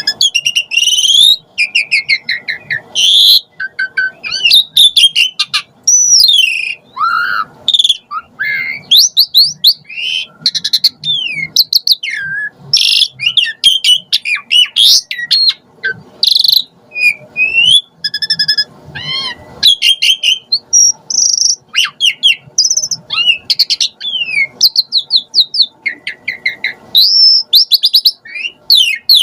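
Pied starling (jalak suren) singing a long, varied song without pause: sliding whistles, fast chattering runs and sharp clicks that change from note to note, full of mimicked fill-in phrases.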